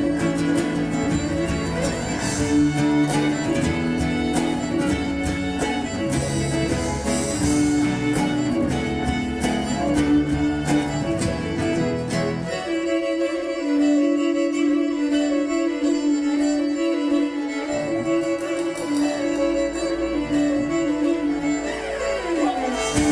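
A band playing an instrumental passage, violin over guitar with bass. About twelve seconds in the low bass drops out for several seconds, then comes back in.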